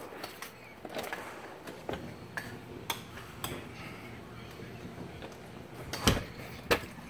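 Footsteps on a wooden deck: scattered light knocks and clicks, with a louder thump about six seconds in and another just after.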